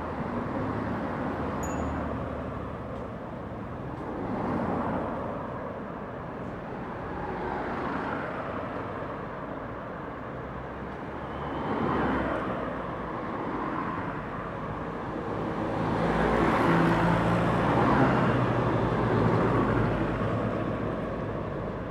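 Street traffic: cars passing one after another with tyre and engine noise, the sound swelling and fading every few seconds. About three quarters in, a heavier vehicle passes with a low engine drone, the loudest and longest pass.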